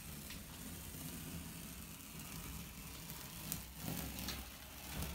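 Blue painter's tape being peeled off a freshly painted wall: a faint crackling peel, with a few sharper ticks about three and a half seconds in.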